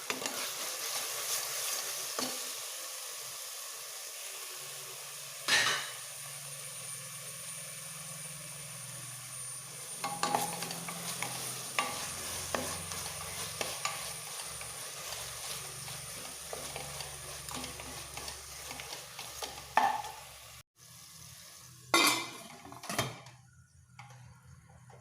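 Chopped ginger, garlic, green chillies and cardamom sizzling in coconut oil with onions and tomato while a spoon stirs and scrapes the pan, with scattered clinks. Near the end the sizzle breaks off suddenly, then there are two louder knocks of the spoon on the pan and it goes much quieter.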